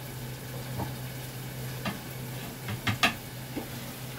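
A utensil stirring a pot of tomato gravy cooking on a gas burner, over a steady hiss. A few knocks of the utensil against the pot come through, the sharpest about three seconds in.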